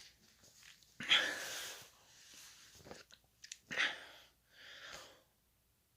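A man's sharp breathy exhalations and mouth noises, several times: the strongest about a second in, then fainter ones, in disgust at the taste of a soft dog treat he has just eaten.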